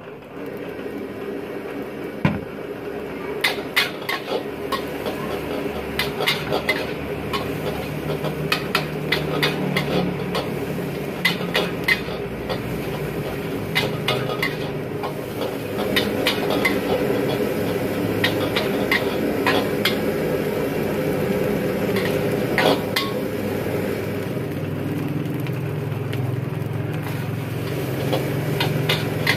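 Metal spatula scraping and clanking against a steel wok while fried rice is stir-fried, in irregular sharp clinks and scrapes over a steady low rush.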